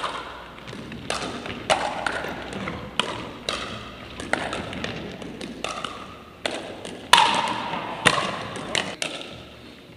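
Pickleball paddles hitting a plastic pickleball during rallies: about a dozen sharp pocks at irregular intervals, the loudest about seven seconds in, each ringing on in the reverberant gym.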